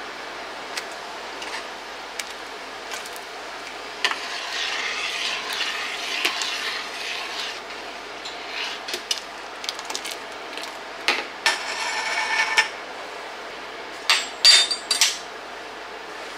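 Kitchen utensils clinking and scraping against glass canning jars and a pot as tomato sauce is ladled into jars: scattered clicks, a few seconds of scraping, a short ringing scrape, then a quick run of sharp clinks near the end.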